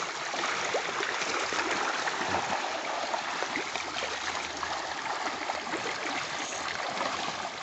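A dense mass of Nile tilapia in a floating net cage thrashing and splashing at the water surface as they are fed, a continuous churning splash full of small slaps.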